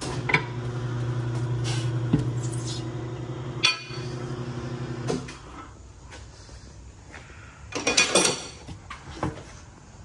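Tire changer's turntable motor running with a steady hum for about five seconds as the tire bead is pried off the wheel rim, with a sharp metal clank midway. Then the motor stops, and a short burst of metal clattering comes near the end.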